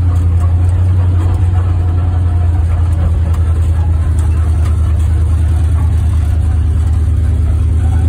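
1961 Ford F-250 pickup's engine running as the truck drives, heard from inside the cab: a steady, loud low hum with a fast, even pulsing.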